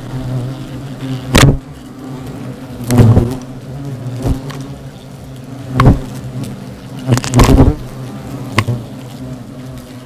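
A swarm of European hornets buzzing round a nest in a birdhouse: a steady low wingbeat drone, with about five loud swells as single hornets fly close past the microphone. The hornets are agitated, flocking in to a nest that has just been attacked.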